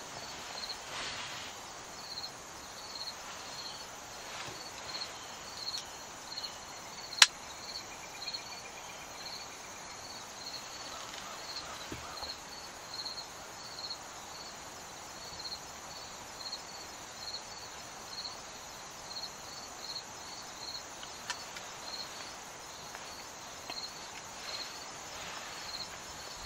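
A chirping insect outdoors: a high chirp repeated steadily, a little more than once a second. A single sharp click about seven seconds in.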